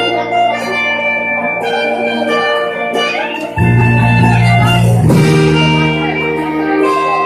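Live rock band playing an instrumental passage led by electric guitar, with a low bass part that comes in strongly about three and a half seconds in.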